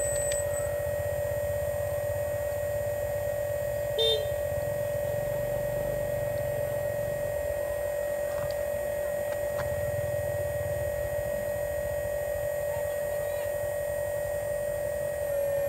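Steady electric whine from an RC Hitachi excavator's hydraulic pump motor as the boom and arm move, with a low rumble underneath. There is a single sharp click about four seconds in.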